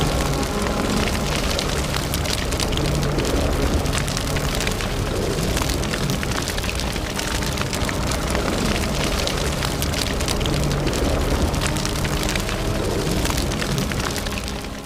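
Fire burning with a dense, steady crackle, over faint droning background music; it fades down near the end.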